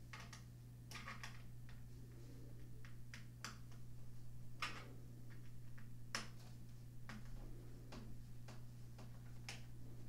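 Small screwdriver working tiny screws out of the side of a 2007 aluminum MacBook Pro's case: faint, irregular metal clicks and ticks, about a dozen, over a steady low hum.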